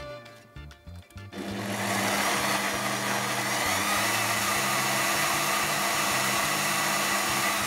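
Bosch kitchen machine's blender attachment starting about a second in and running steadily, blending strawberries and ice cream into a milkshake. It winds down at the very end, and a few clicks come from the lid being fitted just before it starts.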